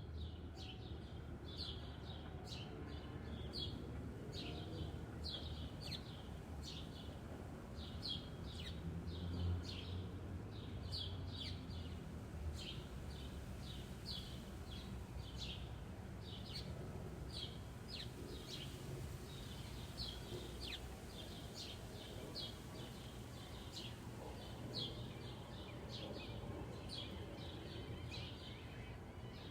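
Small birds chirping: a steady stream of short, high repeated chirps, about two a second, over a constant low rumble of traffic.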